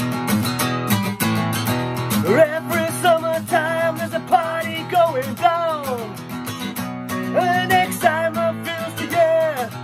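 A man singing to his own strummed acoustic guitar. The guitar plays throughout; the voice comes in about two seconds in, sings one phrase, pauses briefly, then sings a second phrase that ends just before the close.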